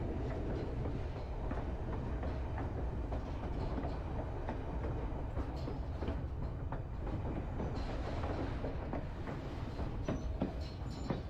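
White Pass and Yukon Route passenger train rolling along the mountain track: a steady low rumble with scattered wheel clicks over the rails and a couple of brief high squeals near the end.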